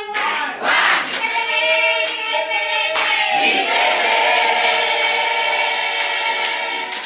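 A group of people singing together, moving into one long held note about three seconds in, with a few hand claps.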